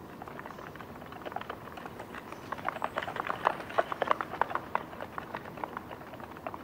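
Desert bighorn sheep hooves clicking and clattering on rock as the sheep walk over a stony slope, an irregular run of sharp clicks that gets busiest in the middle.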